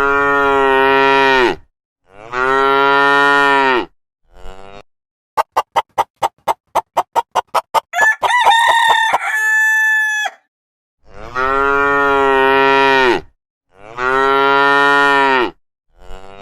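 Cattle mooing: four long, even moos, two at the start and two near the end. Between them comes a fast run of about a dozen short clicking calls and then a higher, held call, sounding like farm fowl.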